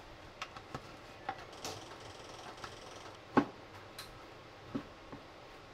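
Food-prep handling sounds: a few light clicks and taps, then a sharp knock on a wooden cutting board about three and a half seconds in, followed by a few lighter knife taps on the board.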